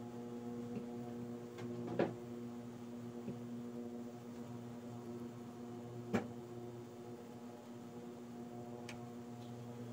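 Induction cooktop humming steadily under a lidded pot on the boil, with two sharp clicks about two and six seconds in.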